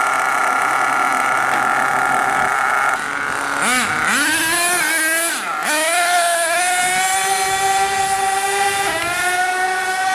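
Radio-controlled monster truck's motor running steadily at first, then revved up and down sharply several times about four to six seconds in as the truck drives off, then held at a steady high pitch with a brief dip near the end.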